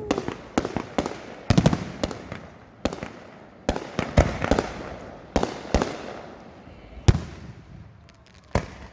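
Aerial fireworks exploding in a rapid, irregular series of sharp bangs and crackles, thinning out over the last couple of seconds, with a last loud bang near the end.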